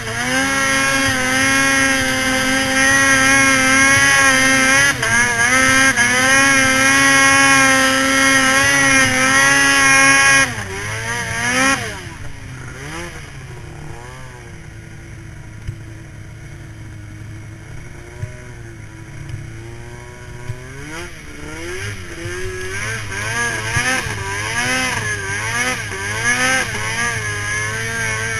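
2010 Arctic Cat M8 snowmobile's two-stroke engine held at high revs for about ten seconds, then the throttle is chopped. The revs then rise and fall in short bursts of throttle and build again near the end as the sled pulls through deep powder.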